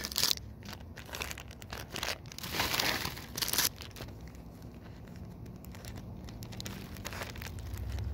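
Foil wrapper of a Pokémon booster pack crinkling and tearing as it is opened, a run of crackles and rips that is loudest about three seconds in and stops before four seconds. After that only a faint low rumble remains.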